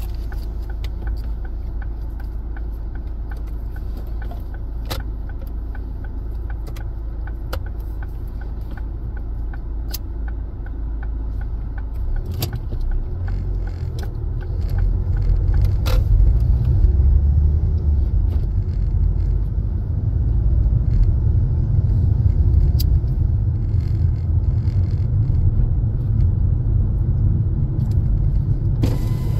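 Car driving, heard from inside: a steady low rumble of engine and tyres that grows louder about halfway through as the car picks up speed, with scattered light clicks and rattles.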